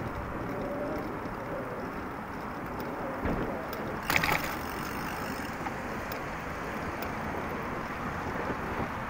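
Steady rush of traffic on a busy multi-lane road alongside, mixed with wind on the microphone as the bicycle rolls along the path. A short knock comes about three seconds in and a sharper rattle about a second later.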